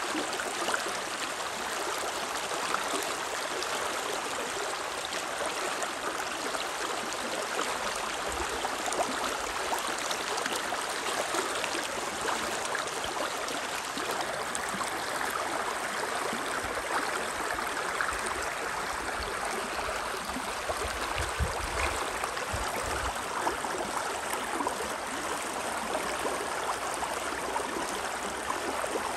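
Water of the Spree river rushing steadily, an even unbroken sound, with a few brief low rumbles in the middle.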